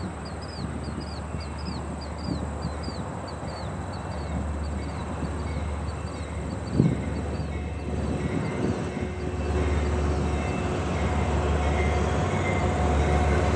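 Amtrak passenger train's diesel locomotive approaching, its engine rumble growing steadily louder, with steady tones entering about halfway through. Repeated high chirps, about two a second, fade out over the first half, and a single sharp knock sounds about seven seconds in.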